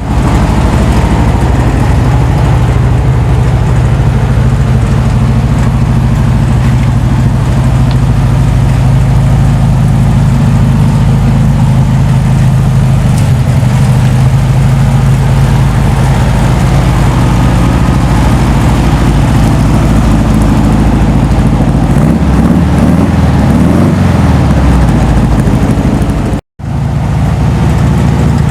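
VW air-cooled flat-four engine running steadily, with its pitch rising and falling a little near the end as it is revved lightly. It cuts out abruptly for a moment near the end.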